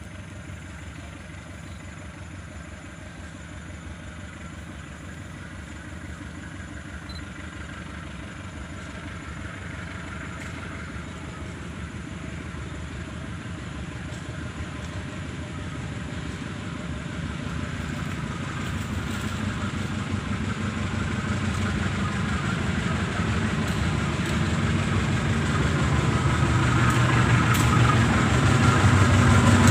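Diesel locomotive approaching: its engine grows steadily louder over about thirty seconds, with the low engine note strongest near the end.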